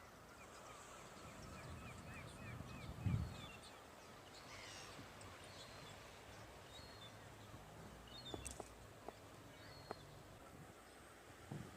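Birds calling on the shore: a quick run of short chirps, about three a second, for the first few seconds, then a few scattered higher calls. These sound over a faint steady haze of wind and surf. A dull thump comes about three seconds in, and a few sharp clicks near the end.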